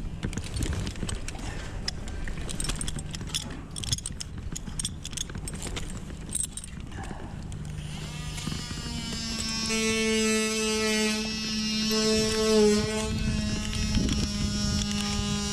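Wind rumbling on the microphone with scattered clicks and knocks. About eight seconds in, background music with long sustained notes fades in and carries on.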